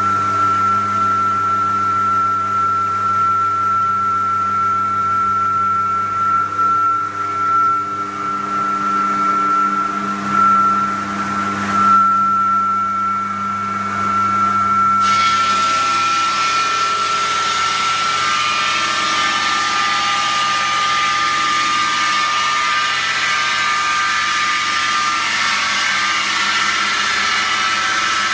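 IMER Masonry 750 electric brick saw running with a steady high whine, its blade cutting through hollow clay bricks. The grinding turns louder and harsher about halfway through and stays so.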